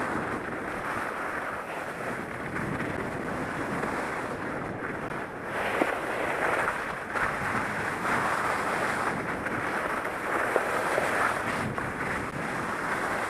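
Skis sliding and scraping over chunked-up spring snow: a continuous rough rushing hiss that rises and falls a little through the turns, with a few sharp clicks, and wind on the helmet camera's microphone.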